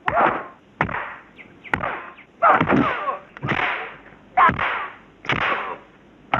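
Nunchaku swishing through the air in a fast series of sharp whooshes, about one a second, as a martial-arts film sound effect.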